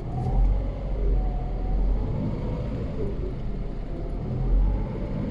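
Lada Priora's engine and freshly rebuilt gearbox running in fourth gear with the car on a lift and the driven wheels turning freely: a steady low rumble with no knock, the knock from the broken differential gear teeth now gone.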